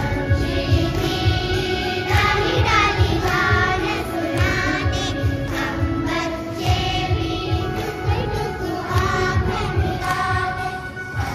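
A choir of children singing together, with a steady low beat underneath.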